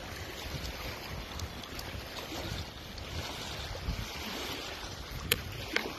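Wind buffeting a phone's microphone over a steady wash of small waves on a rocky shore, with two sharp clicks about half a second apart near the end.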